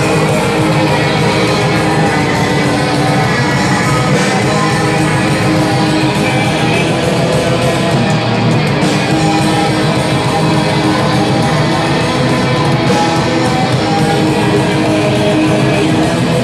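Metal band playing loudly live, with electric guitars.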